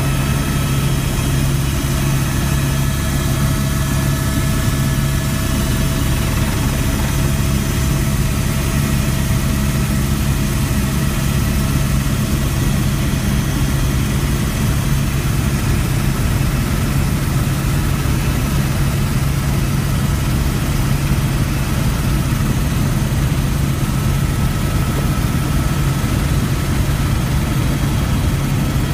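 Helicopter in flight heard from inside the cabin: a steady drone of rotor and engine with a low hum that stays level throughout.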